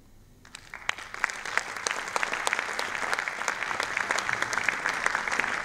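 Audience applauding: the clapping starts about half a second in, quickly builds, then holds steady.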